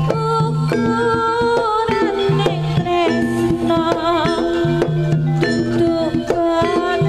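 Javanese jaranan music from a sound system: a gamelan-style ensemble with drum strokes and held low notes under a high lead melody that wavers and bends.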